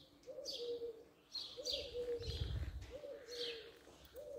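A dove cooing over and over, one two-part coo about every second and a half, while a smaller bird chirps in higher, falling notes between the coos.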